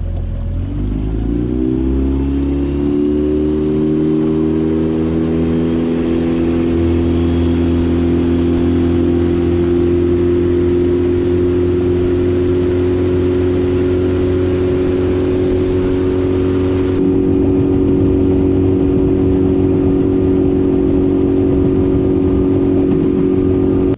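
Outboard motor on a Gheenoe LT10 skiff throttling up, its pitch rising over the first few seconds, then running at a steady speed with water and wind hiss.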